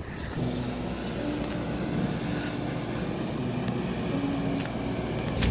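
A large van's engine running steadily, heard from inside, with a faint tune of short stepped notes over it.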